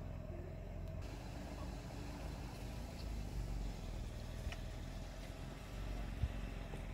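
Steady low rumble of a taxi driving, its engine and road noise heard from inside the car, with a few faint ticks and a short thump about six seconds in.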